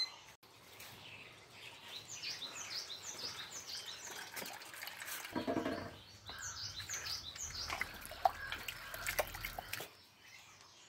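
Birds chirping faintly in two bouts of quick, short falling notes, over soft wet squishing of rice-based dog food being mixed by hand in a steel bowl. A brief low voice-like sound comes about halfway through.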